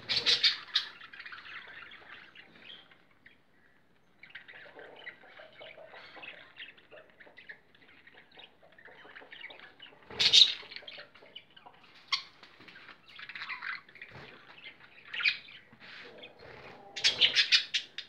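Budgerigars chirping and chattering in uneven bursts with short pauses. The chatter is loudest at the very start, about ten seconds in, and just before the end.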